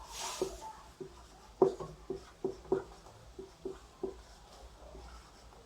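Handwriting with a pen or marker in a small room: a string of short, irregular taps and scratchy strokes, after a brief hiss at the start.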